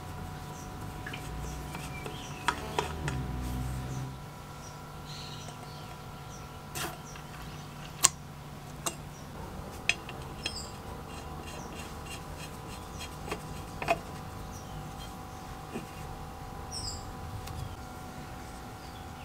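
Brass parts of a kerosene pressure stove being handled and fitted by gloved hands, giving scattered sharp metal clicks and taps, the loudest about eight seconds in, over a low rumble in the first few seconds. Birds chirp faintly in the background.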